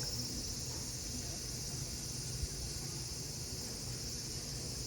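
Cicadas singing in chorus, a steady high-pitched shrill drone.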